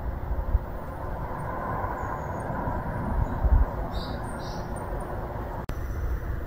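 Outdoor background noise: a steady hum with low rumbling on the microphone, faint high bird chirps, and two clearer short chirps about four seconds in.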